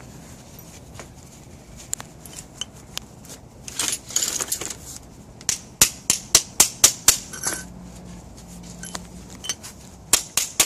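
Hammer striking a small steel brake clip held in vise grips against concrete, bending it back into shape: a quick run of about eight sharp metallic taps a little over halfway in, then two more near the end.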